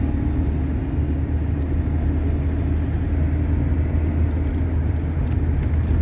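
Steady engine drone and road noise inside a GAZelle van's cab while it drives along the highway.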